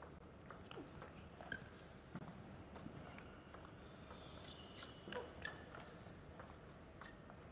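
Table tennis rally: the ball clicks back and forth off rackets and table, with short high squeaks from the players' shoes on the court floor, the loudest about five and a half seconds in.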